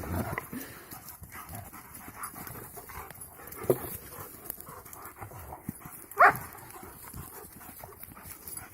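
A dog, with two short high calls, one about three and a half seconds in and a louder one about six seconds in.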